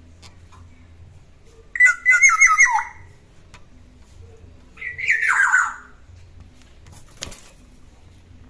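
Golden oriole (kepodang) giving two short calls about three seconds apart, each a quick run of notes falling in pitch. A single sharp click comes near the end.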